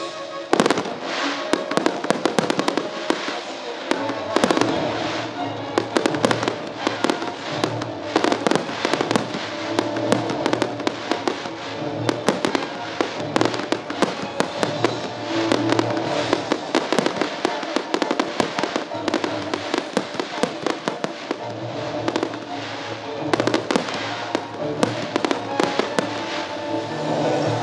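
Aerial fireworks bursting in quick succession, many sharp bangs and pops, with show music playing underneath.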